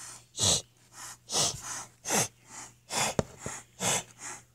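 A kitten hissing over and over, short sharp hisses about one a second, louder ones alternating with fainter ones.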